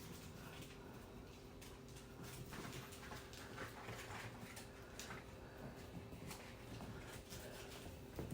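Dachshund puppies moving about: faint scattered clicks and scuffles over a low steady hum.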